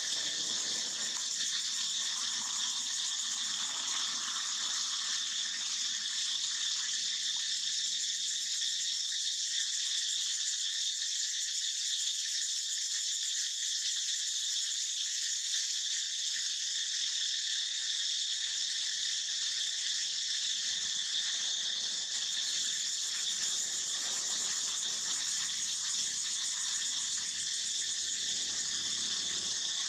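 Steady, unbroken high-pitched chorus of insects trilling together.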